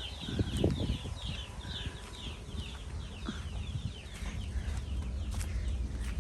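Birds chirping in a rapid run of short, falling chirps, with a low wind rumble on the microphone underneath.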